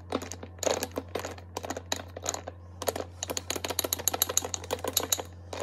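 A metal spoon stirring whipped coffee in a glass, clinking against the glass in rapid, irregular clicks. A steady low hum runs underneath.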